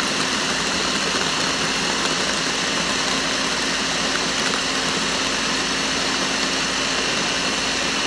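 Countertop blender running steadily at full speed, blending ice and milk into a frozen drink, with a constant motor hum and whir.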